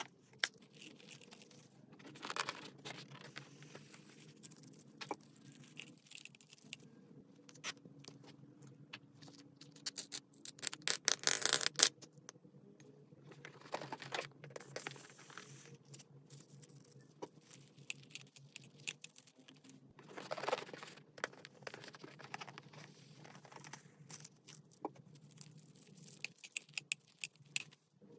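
Slime being handled, squeezed and poked: irregular sticky clicks and crackles, with the loudest, densest run of clicking about eleven seconds in.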